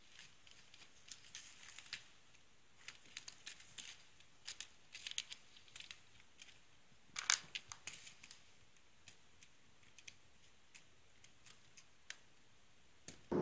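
A kitten pawing and dragging a plastic ballpoint pen across a woven floor mat: scattered faint scratches and light clicks of claws and pen on the mat, the sharpest cluster a little past halfway.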